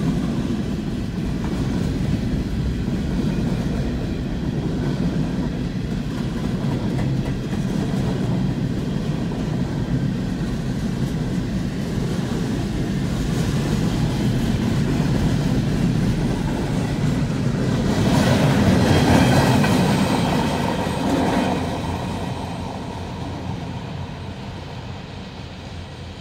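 Freight train of tank cars and hopper cars rolling past, a steady rumble with the clatter of wheels on the rails. It swells about three-quarters of the way through, then fades near the end.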